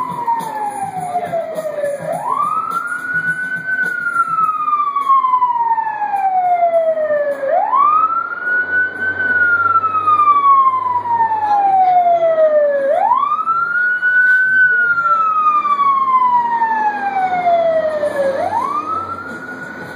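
Fire engine siren wailing. Its pitch sweeps quickly up and then falls slowly, repeating about every five and a half seconds. It grows louder toward the middle as the truck approaches.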